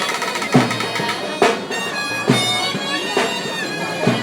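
Live folk music for a dance troupe: a reedy wind instrument playing a wavering melody over a steady drum beat, a strong stroke about once a second.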